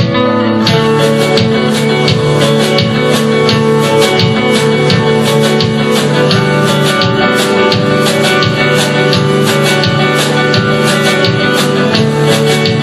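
Loud live experimental noise music: dense, layered held tones with many fast, irregular sharp attacks over them.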